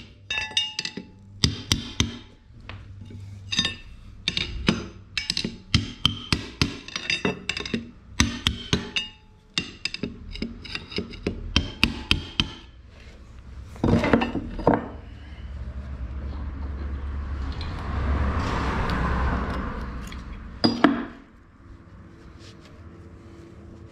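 A hammer tapping on metal, many quick irregular ringing strikes over the first dozen seconds. Then comes a louder knock, a steady rushing noise for several seconds and a last sharp knock.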